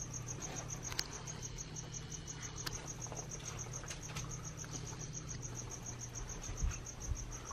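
A cricket chirping steadily, a high even pulse repeating about six times a second, over a low steady hum.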